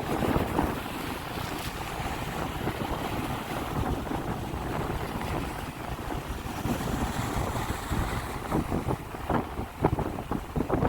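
Sea waves washing, with wind buffeting the microphone.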